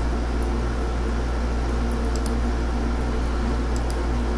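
Steady low hum with an even hiss of background room noise, and a few faint high ticks.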